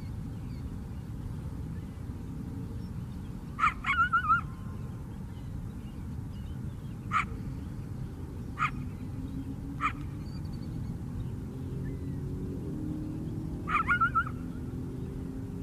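Coyote barking and yipping: a sharp bark breaking into short wavering yips about four seconds in, three single barks a second or so apart in the middle, and another bark with wavering yips near the end, over steady low background noise.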